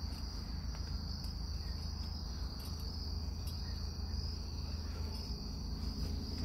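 Crickets trilling in one unbroken, steady high-pitched band, over a low steady background rumble.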